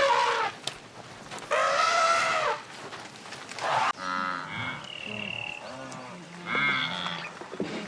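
Cattle mooing: a short call, then one long drawn-out moo. Just before the halfway point the sound cuts to other animals calling in wavering, repeated cries.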